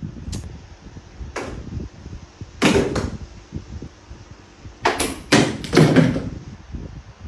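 A series of dull knocks and thumps at uneven intervals, about six or seven in all, each dying away quickly. The loudest come a little before halfway and again a bit past two-thirds through.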